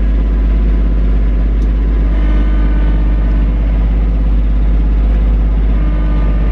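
Kubota B2650 tractor's three-cylinder diesel engine running steadily, heard from inside the cab.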